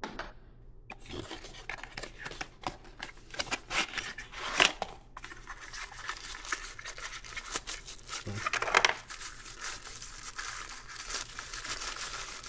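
A plastic bag crinkling and rustling as it is pulled out of a paper box and unwrapped by hand, with sharp crackles and tearing throughout. The loudest rustles come a little before halfway and again about two-thirds through.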